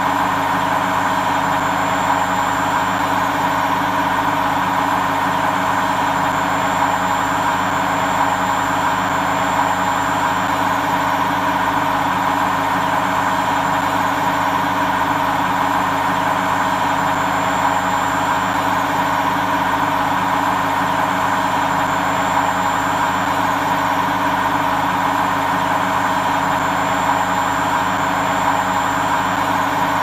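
Hotpoint WMA50 front-loading washing machine spinning its drum steadily, a constant motor-and-drum hum with a thin high whine over it.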